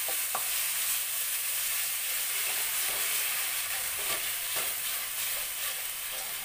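Onion-tomato masala sizzling in oil in a steel kadai, stirred with a spatula that scrapes across the pan every second or so at an uneven pace.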